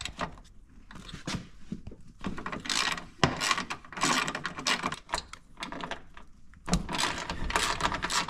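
Hand socket ratchet clicking in several quick bursts as it backs out the seat-mount bolts on a motorcycle frame.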